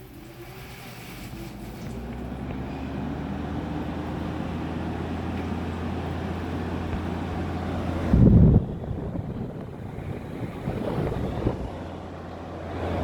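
Midea 5,000 BTU window air conditioner switched on in fan-only mode: the fan motor spins up with a rising whine over the first few seconds, then runs steadily with a low hum and rushing air. One loud low thump about eight seconds in.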